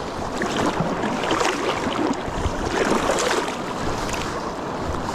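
River water rushing steadily, a little louder about midway through.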